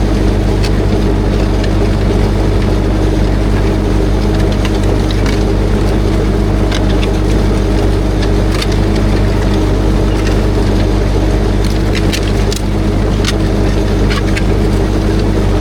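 Ursus C-360 tractor's four-cylinder diesel engine running steadily under load while pulling a disc harrow, with scattered light ticks over the top.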